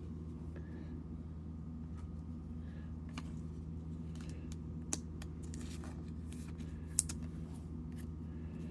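Faint, scattered clicks and taps of chrome trading cards being handled and slid over one another, over a steady low hum.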